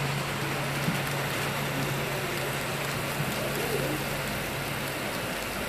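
Model freight train led by Conrail SD50 diesel locomotives running past, a steady low drone that fades about five seconds in as the locomotives pass and the freight cars follow, over a constant hiss.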